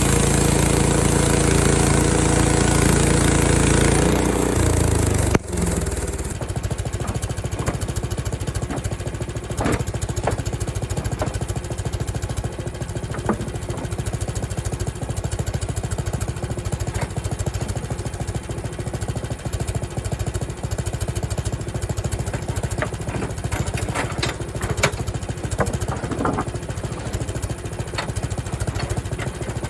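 Small gasoline engine of a Frontier OS23 portable bandsaw mill running steadily while the mill saws a short log. The sound changes abruptly about five seconds in, and a few light clicks and knocks sound over the engine.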